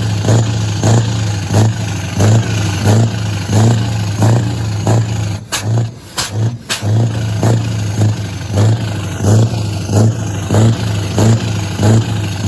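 Scania V8 diesel truck engine running, with a steady low drone and a regular pulsing beat about every two-thirds of a second. About six seconds in the sound briefly drops away, with a few sharp clicks, then the engine picks up again.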